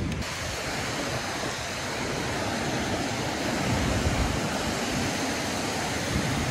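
Lake Michigan waves washing onto the shore in a steady rush, mixed with wind buffeting the microphone.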